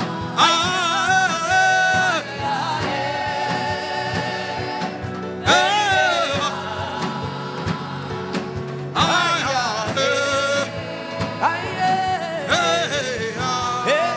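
Gospel worship singing with instrumental backing: a voice holding long, wavering notes in several sung phrases.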